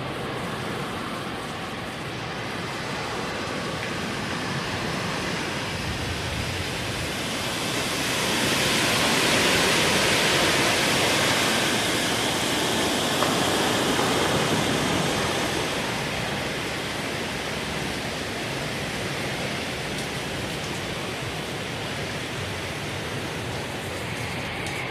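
Wind and heavy rain of a severe storm with a tornado passing nearby: a steady rushing noise that swells to its loudest about eight to fifteen seconds in, then eases.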